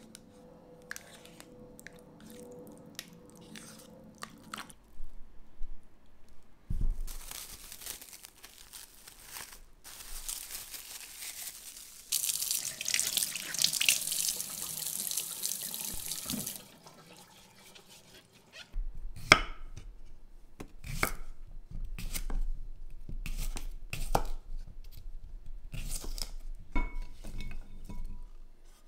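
Tap water running into a kitchen sink for a few seconds, then a knife chopping on a cutting board in sharp strokes about a second apart.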